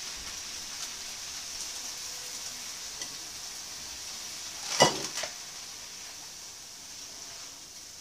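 Frozen asparagus and mushrooms sizzling in butter and olive oil in a frying pan: a steady hiss as the water from the frozen asparagus cooks off. One sharp clatter about five seconds in.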